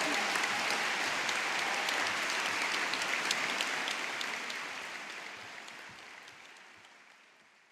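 A large audience applauding, a dense, even clatter of many hands clapping that fades away gradually over the last few seconds.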